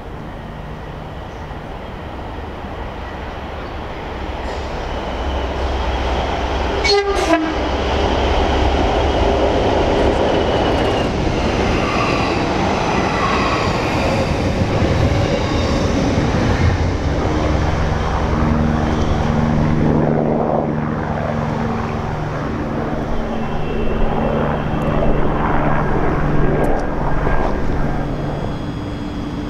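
A charter train hauled by a Class 20 diesel locomotive and an electric multiple unit running through the station together, wheels clattering on the rails and the noise building as they close in. A sharp clank comes about seven seconds in, a train horn sounds partway through, and a steady engine drone holds through the second half.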